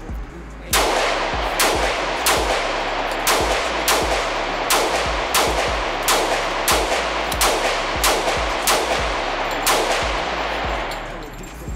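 Pistol fired in a steady string of about fifteen shots, roughly one every two-thirds of a second, each echoing off the walls of an indoor range.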